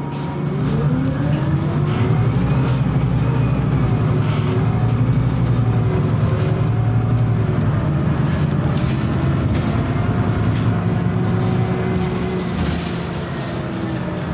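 Cabin sound of a Scania CityWide LF 18 articulated CNG bus under way: the engine and drivetrain rise in pitch as the bus accelerates during the first couple of seconds, then run steadily, with another short rise midway. Light rattles and clicks from the cabin fittings come through.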